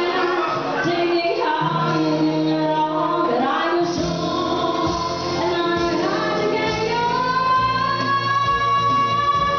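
A live band playing a song with a singer, a female voice leading over the instruments. Near the end one sung note is held for a few seconds, rising slightly in pitch.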